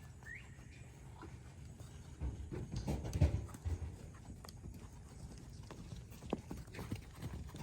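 Hooves of several horses clopping as they walk, with many uneven footfalls starting about two seconds in.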